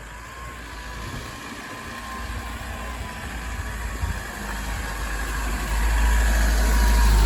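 A motor vehicle's engine running, its low rumble and noise growing steadily louder.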